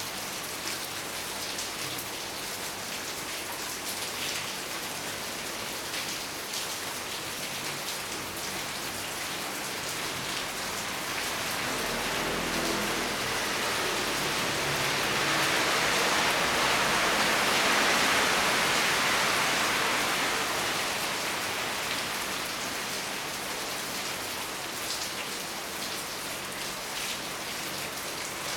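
Steady rain falling, with separate drops heard hitting a surface; it swells heavier about halfway through, then eases back.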